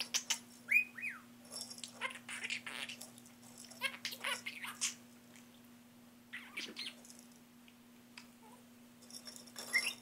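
Budgerigar chattering and whistling in short bursts, with one clear whistle that rises and falls about a second in. The bird goes mostly quiet for a few seconds in the second half, then chatters again near the end.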